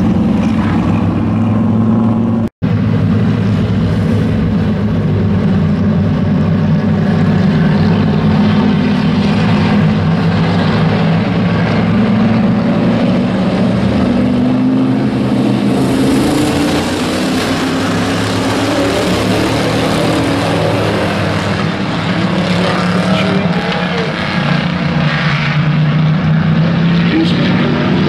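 Engines of a field of hobby-class race trucks (small pickups) running around an oval track in a steady loud drone, rising and falling a little as the pack passes. The sound cuts out for an instant about two and a half seconds in.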